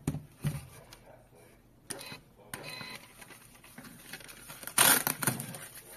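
Thermal receipt paper being handled at the slot of a mini thermal printer, with light clicks and rustles, then torn off against the tear edge in one loud rip about five seconds in.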